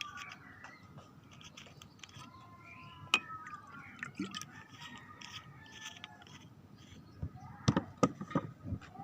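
Faint, indistinct voices in the background, with a sharp click about three seconds in and a few sharp knocks near the end.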